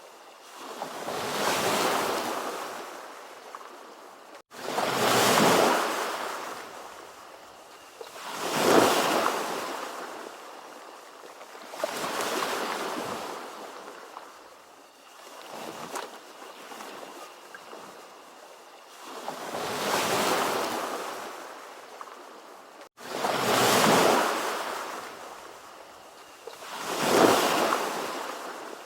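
Ocean waves washing in, one surge about every three to four seconds, each swelling into a hiss and draining away. The sound cuts out for an instant twice.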